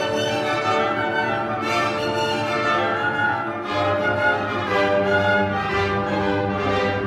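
Symphony orchestra playing a passage of a romantic cello concerto, with the strings to the fore.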